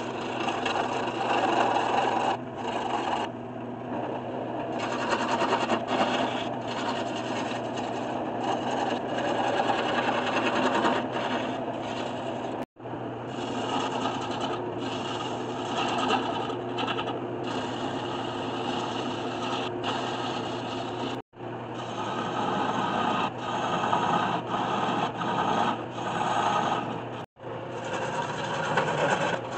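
Wood lathe running while a gouge cuts a spinning black walnut blank, the tool shaving chips in uneven surges over the steady hum of the lathe. The sound breaks off abruptly three times for an instant.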